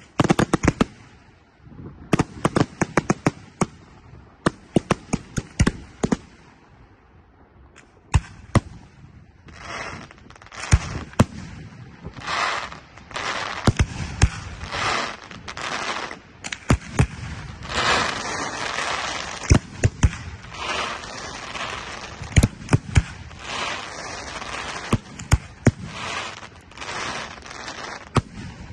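Aerial firework shells bursting in quick runs of sharp bangs. From about ten seconds in they thicken into a dense, almost continuous rushing noise, with sharp reports still going off throughout.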